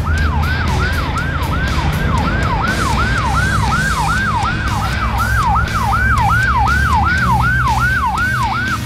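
Fire rescue truck's electronic siren in a fast yelp, about three falling sweeps a second, cutting off near the end.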